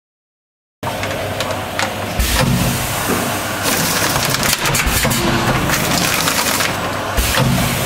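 Doypack pouch-packaging machine running, with dense mechanical clatter and hiss full of sharp clicks and a heavier thump about every two to three seconds. The first second is dead silent.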